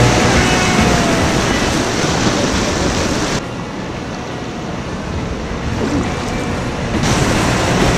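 Rushing water of river rapids close around a kayak. About three and a half seconds in it cuts abruptly to a quieter, duller rush of calmer water. The louder rapids return just as abruptly about a second before the end.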